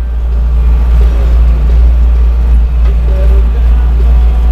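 John Deere 2140 tractor's diesel engine running steadily while the tractor drives across a field towing a roller, heard from inside the cab as a loud, continuous deep rumble.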